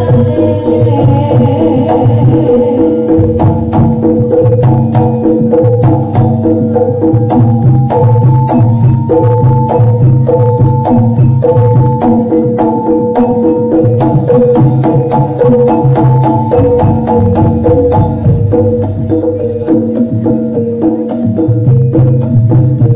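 Javanese jaranan gamelan playing: a kendang hand drum beats out fast, dense patterns over held gong tones and a stepping melody on bronze percussion.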